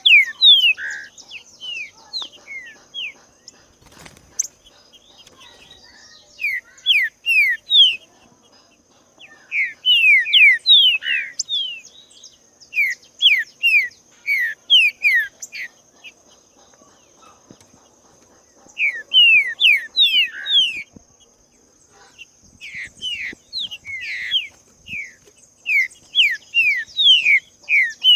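Green-winged saltator (trinca-ferro) singing: bouts of a few seconds of loud, clear whistled notes, each falling in pitch, separated by short pauses. A faint steady high-pitched tone runs underneath.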